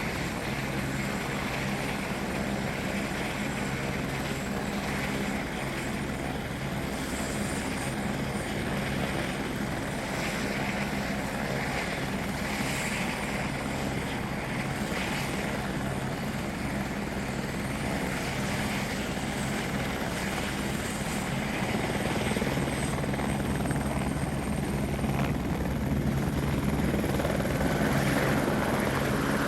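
Air Evac medical helicopter running, a steady beat of the rotor over the engine's whine, growing somewhat louder over the last several seconds.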